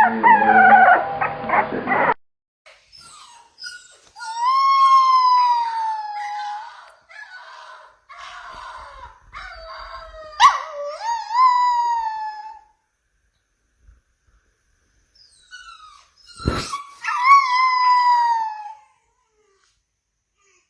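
Chihuahua crying: a string of high, drawn-out whines and howls that slide down in pitch, with short pauses between them. A sharp click comes in the middle and a thump just before the last cry.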